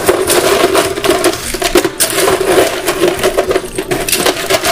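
Small ice cubes clattering and clinking as they are scooped up, a fast run of small clicks and rattles.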